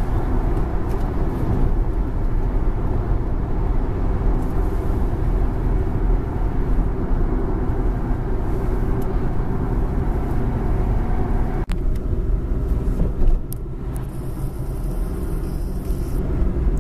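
Steady low rumble of engine and tyre noise inside a car's cabin while driving at road speed. The sound breaks off for an instant about twelve seconds in, and there is a brief louder bump shortly after.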